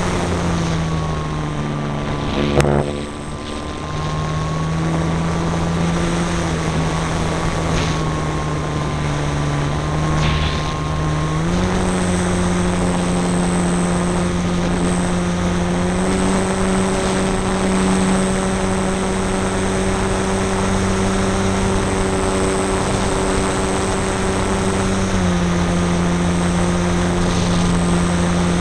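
Electric motor and propeller of a Multiplex AcroMaster RC plane running, heard from a camera on the wing with air rushing over the microphone. The motor's pitch steps down about a second in, up about 11 seconds in and again at 16, and drops back near the end.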